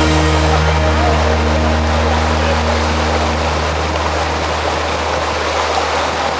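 Fast, muddy floodwater rushing over a shallow flooded crossing and breaking around the legs of people standing in it: a steady, loud rush with a low rumble underneath.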